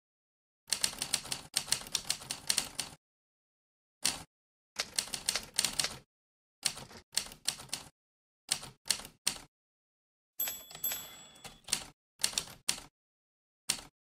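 Sampled vintage typewriter keystrokes from a Mac typewriter-sound app, one sharp clack per key press, in quick bursts with short pauses between. About ten seconds in, a bell-like ding rings over a longer fading sound.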